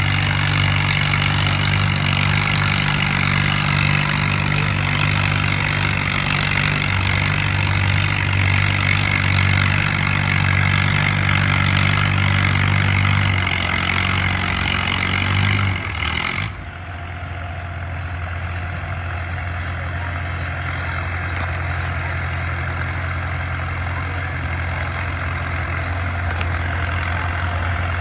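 Antique farm tractor engine running hard at a steady throttle while pulling a weight-transfer sled. About two-thirds of the way through it drops suddenly to a quieter, lower steady idle.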